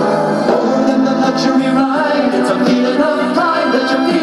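Music with choir-like singing, played from a cassette on a Pyle PL5CSUB player's cheap slot-loading car-radio-style tape mechanism and heard through its small built-in speakers.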